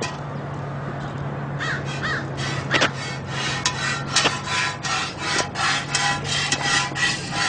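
Camel being hand-milked: jets of milk squirting into a pail in a regular rhythm, about three a second, over a steady low hum.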